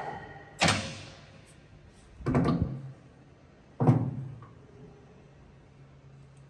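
A Runmaster RUN 330x1000RR lathe's running sound stops, then three clunks from the headstock about a second and a half apart as its gears are shifted to a higher spindle speed, with a faint low hum under them.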